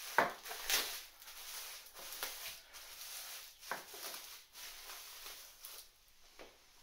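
Bubble wrap rustling and crinkling as a small part is unwrapped by hand, with irregular sharp crackles, the loudest in the first second and again near the middle, dying down near the end.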